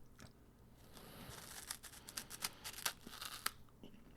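Faint crisp crackles and crunches of someone biting into and chewing a hollow puffed corn snack, scattered over a couple of seconds.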